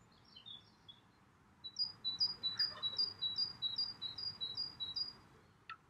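A small songbird singing a fast, rhythmic run of repeated two-note phrases, a higher note then a lower one, about three pairs a second. The run begins about two seconds in, after a few softer chirps.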